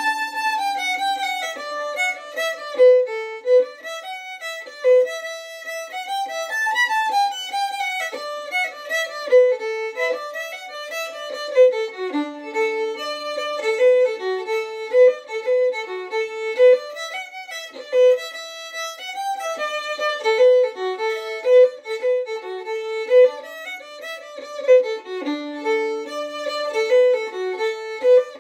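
Solo fiddle playing an Irish reel as a ragtime-flavoured hornpipe: one lively bowed melody line of quick notes, with a held low note about twelve seconds in and again near the end.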